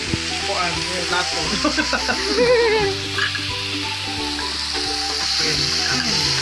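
Meat slices sizzling on an electric grill plate: a steady frying hiss that grows stronger over the last couple of seconds.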